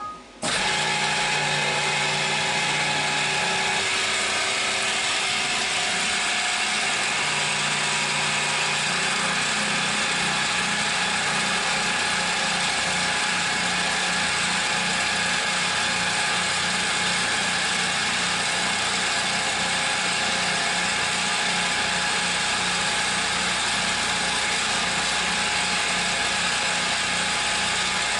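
CNC milling machine cutting with a 1/2-inch three-flute carbide end mill at 1700 RPM on a 2D adaptive roughing pass. The spindle and cut start suddenly about half a second in and then run steadily, with a low rhythmic throb.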